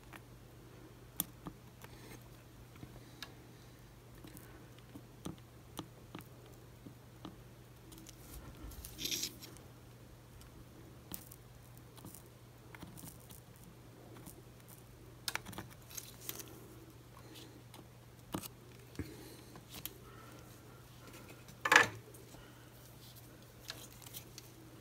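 Scattered small clicks and taps of tools and the board being handled on a workbench, over a steady low hum. A brief hiss comes about nine seconds in, and a sharper, louder click near the end.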